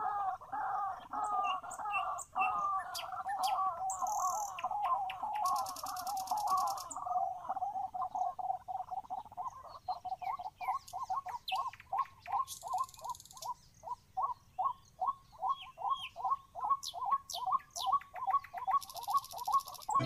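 White-breasted waterhen calling: a fast, chattering run of notes that settles, about halfway through, into a steady series of short repeated calls, about two or three a second.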